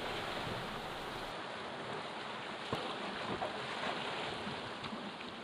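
Steady rushing of whitewater rapids around an open canoe running them, with one faint knock about three seconds in.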